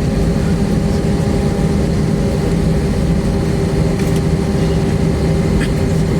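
Airbus A320-232 cabin noise while taxiing: its IAE V2500 jet engines at idle and the cabin air system running, a loud, steady drone with a constant hum tone.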